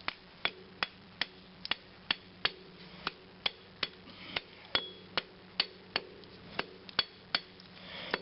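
Hammer blows on a transformer's steel core, striking steadily about two and a half times a second with a sharp metallic ring, knocking the laminations loose to scrap it.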